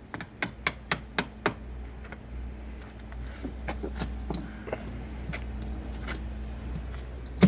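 Hammer tapping a chisel into a rotted hull plank of a wooden boat: about six quick, light taps in the first second and a half, then scattered clicks and scraping as the loosened wood is worked by hand, and one sharp knock near the end.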